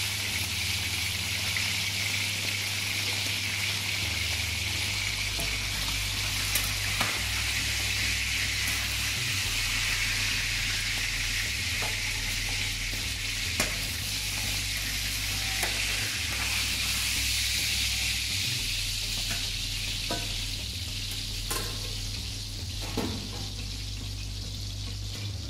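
Beef searing in hot lard in a stainless-steel braising pan, a steady sizzle, with a few sharp metal clicks as a slotted turner lifts the meat out.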